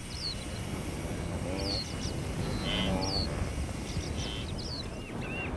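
A running herd of wildebeest: a dense, low drumming of many hooves, with two grunting, moo-like calls from the wildebeest about a third and halfway through. Short high bird chirps recur throughout.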